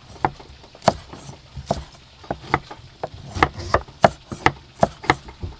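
Cleaver chopping plant stalks on a round wooden chopping block: a string of sharp knocks, roughly three a second and unevenly spaced, as the blade strikes the wood.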